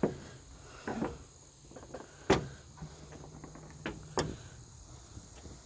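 Sharp plastic clicks and knocks as a long straight edge pries at trim to pop it loose, about five in all, the loudest about two seconds in.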